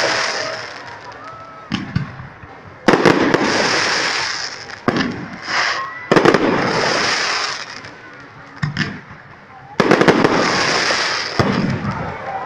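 Aerial fireworks shells bursting overhead: three loud bangs about three seconds apart, each followed by a long crackle that dies away, with smaller pops in between.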